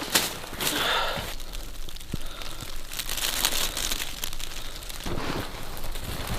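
Irregular crinkling and crackling of a small campfire being started with plastic bags and twigs.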